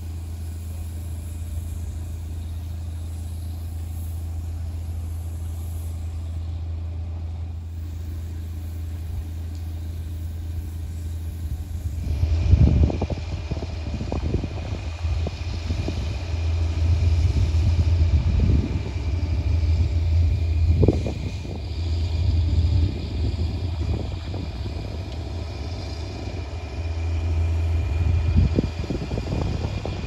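Diesel engines of heavy construction machinery running with a steady low drone. About twelve seconds in the sound changes to a louder, uneven rumble that surges and falls back several times.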